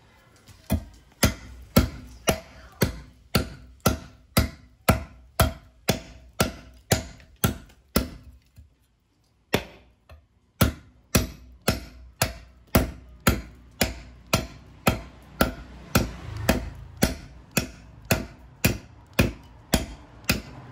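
Knife blade of hand-forged landing-gear steel chopping into a hard ironwood (nghiến) log, about two sharp blows a second with a short pause near the middle. This is an edge-retention test, and the edge comes through undamaged.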